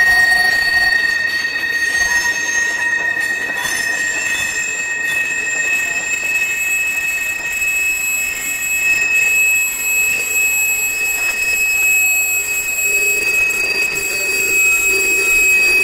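Freight cars rolling through a curve, their wheel flanges squealing in steady high tones over the rolling noise of the wheels. The main squeal steps up in pitch a few seconds in.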